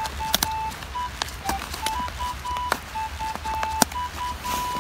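Sharp clicks from handling a fabric backpack's buckles and straps, over a run of short, clear whistled tones at slightly shifting pitches, about two or three a second. The loudest click comes near the end.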